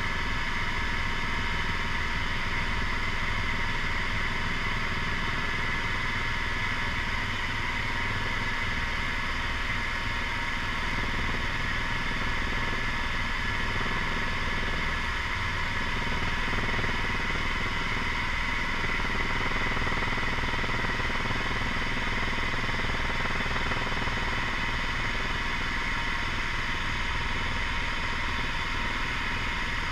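Helicopter cabin noise in steady flight: a constant high whine over a rapid low beat from the main rotor.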